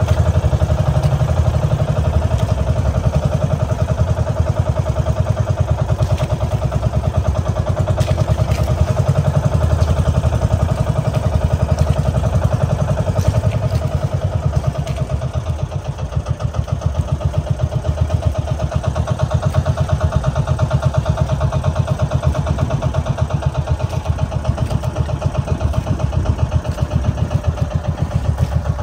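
Small boat engine running steadily, its rapid firing pulses holding an even pace, with a slight dip in level about halfway through.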